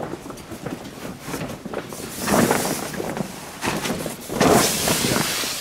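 Heavy plastic tarp sheeting rustling and crackling as it is pushed aside, in two louder bursts about two and four and a half seconds in, with rubber-boot footsteps on the barn floor.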